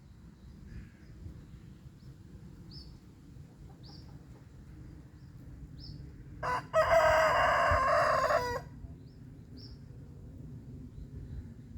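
A rooster crows once, a loud call of about two seconds a little past halfway, marking its territory in the morning. Small birds chirp faintly and briefly throughout.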